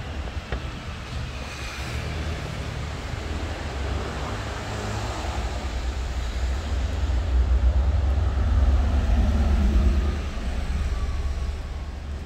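Street traffic with a low rumble: a vehicle passes close by, growing louder and at its loudest about eight to ten seconds in, then fading.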